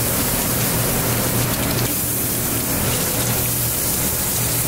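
Redfish fillets blackening in a hot cast-iron skillet, a steady loud sizzling hiss with a constant low hum underneath.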